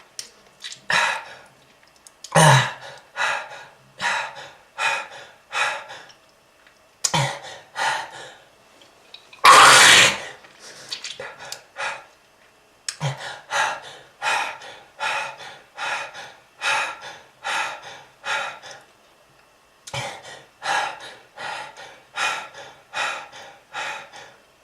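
A person coughing hard in repeated fits, hacking coughs about two a second with short pauses between bouts, and one longer, louder harsh cough about ten seconds in. A smoker's cough, presented as the sign of smoking-related lung disease.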